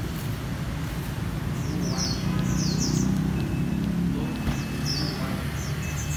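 Small birds chirping repeatedly, over a low rumble that swells in the middle. A thin electronic beep sounds about four seconds in and again at the very end, as the power tailgate is triggered from its remote and starts to open.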